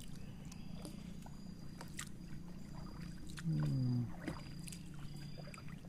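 A small boat's engine idling with a low, steady hum, with a few light knocks. About three and a half seconds in, a short voice sounds over it.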